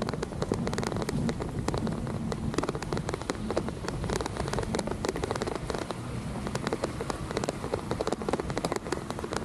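Rain falling, its drops landing close by as dense, irregular ticks over a steady low rumble.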